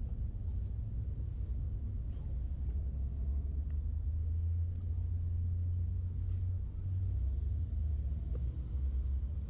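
City street traffic: a low, steady rumble of passing vehicles that swells in the middle and eases again near the end.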